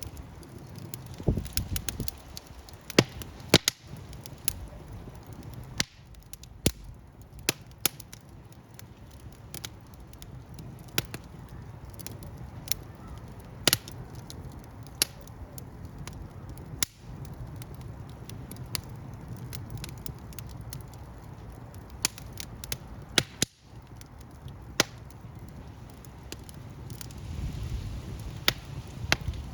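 Wood fire crackling: irregular sharp pops and snaps over a low steady rumble of burning.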